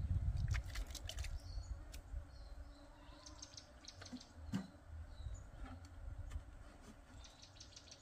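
Scattered clicks and knocks of a cup scooping water and tapping a plastic jerrycan, with a duller knock about halfway. Short trains of rapid, even ticking come and go behind them, twice.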